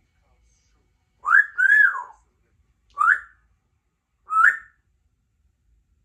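Congo African grey parrot whistling four short notes. The first two run together as a rising note and then a rise-and-fall, followed by two more rising notes about a second and a half apart.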